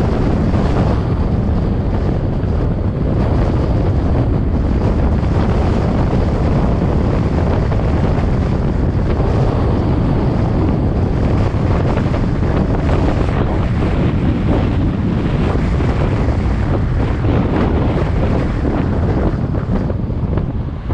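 Steady wind noise buffeting the microphone of a camera on a car driving at speed, mixed with road noise, dipping briefly right at the end.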